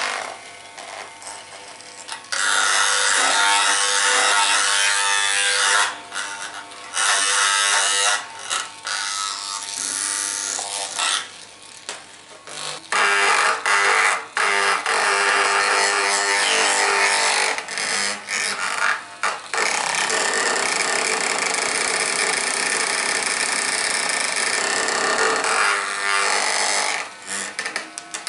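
A small electric motor device buzzing close up in stretches of several seconds, stopping and starting again several times.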